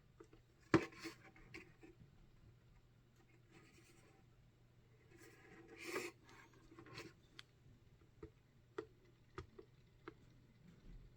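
Faint handling of a plastic wall clock: scattered small clicks and rubbing, with one sharper click about a second in and a short rustle near the middle.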